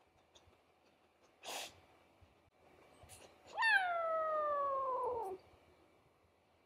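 Tabby kitten giving one long meow, nearly two seconds long, that slides down in pitch toward the end. A short breathy puff is heard a couple of seconds earlier.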